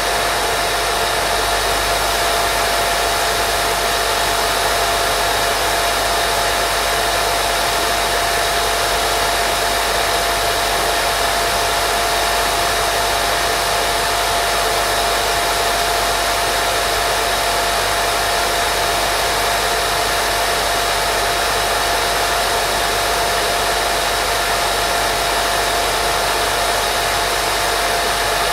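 Steady white noise for baby sleep: an unbroken, even hiss with a constant mid-pitched whine running through it, unchanging throughout.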